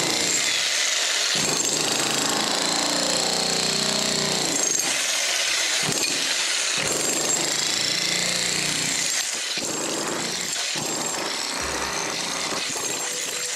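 A 15 kg corded electric demolition hammer chiselling into a very hard concrete screed floor. It hammers continuously with a few short breaks and runs a little quieter for the last few seconds.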